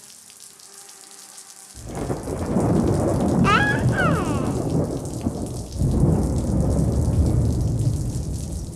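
Two long, deep rolling rumbles, the first starting about two seconds in and the second at about six seconds. A brief tangle of gliding high tones sounds in the middle of the first.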